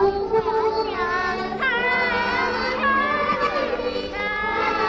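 Children's voices singing, several at once, in a steady melodic stretch.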